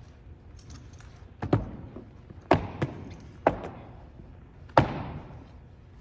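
Sharp knocks from a color guard's drill movements, boot heels stamping and drill rifles being snapped into position: four loud strikes and one lighter one, about a second apart, each ringing briefly in the hall.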